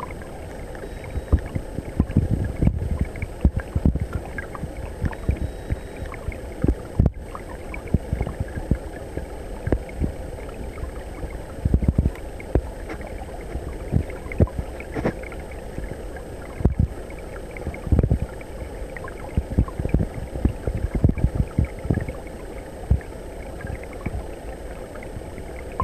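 Flowing stream water heard with the microphone underwater: a muffled, steady wash broken by frequent irregular low thuds and gurgles.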